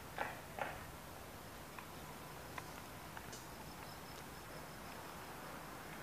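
Faint outdoor ambience of an open construction site: a steady low background with a few short knocks in the first second and scattered faint clicks after.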